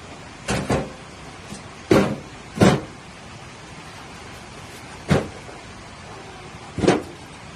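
A series of about six separate knocks at irregular intervals. The loudest two fall about two seconds in.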